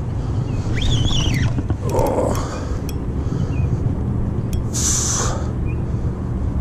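Steady low rumble of wind on the camera microphone. A bird gives one short rising-and-falling call about a second in, and there is a brief hiss about five seconds in.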